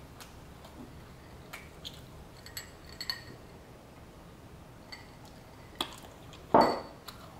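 Eating and drinking sounds at a table: scattered small clicks and glassy clinks from a drinking glass with a straw being sipped from, and one loud short sound about six and a half seconds in.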